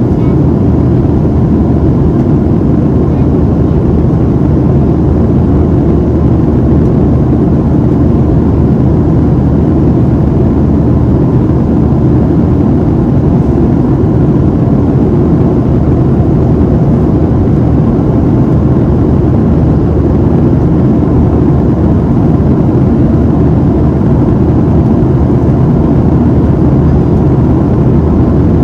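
Steady, loud cabin noise inside a Boeing 737-700 in flight: the low rush of airflow and the drone of its CFM56-7B engines, unchanging throughout.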